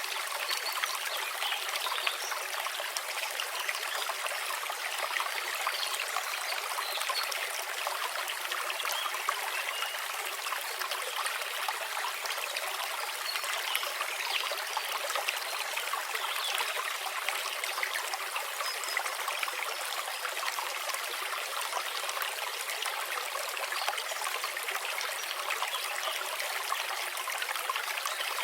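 Babbling brook: water running and trickling in a steady, unbroken rush, with almost no deep rumble.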